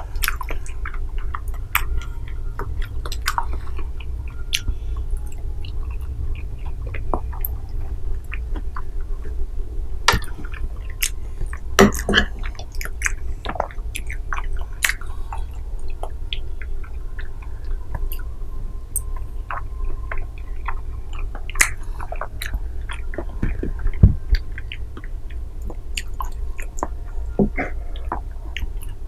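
Close-miked chewing and wet mouth sounds from eating soft mango and dragon fruit jelly, with scattered small clicks and smacks, a few louder, over a steady low hum.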